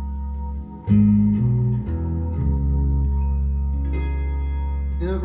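Instrumental passage of a song played back through a hi-fi with a Technics SB-W500 passive subwoofer and KEF Q30 speakers: a deep, steady bass under sustained chords. The music drops briefly just before a second in, then comes back with a loud bass note and a changing bass line.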